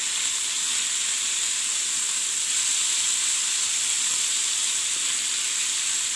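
Marinated chicken pieces sizzling steadily in hot oil on a flat tawa griddle as they fry.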